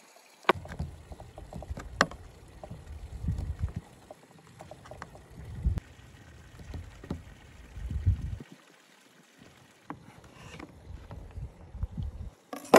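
A large kitchen knife slicing a walnut-filled churchkhela on a wooden board: sharp taps of the blade against the board, the loudest about half a second in and at two seconds. Gusts of wind rumble on the microphone.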